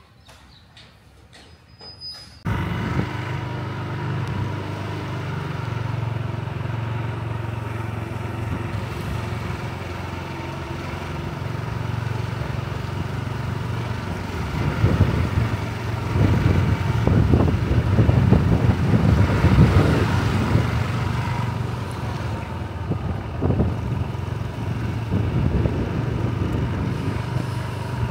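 A motor vehicle engine running steadily. It cuts in suddenly a couple of seconds in and gets rougher and louder in the middle.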